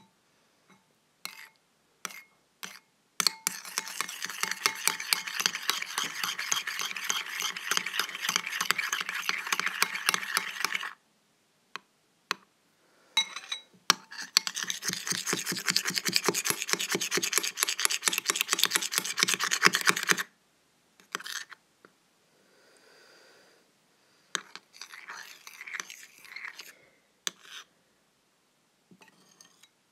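A utensil stirring glue-based slime in a bowl, with rapid scraping and clicking. It comes in two long bouts, one of about eight seconds and one of about six, with a few single knocks and short scrapes between and after.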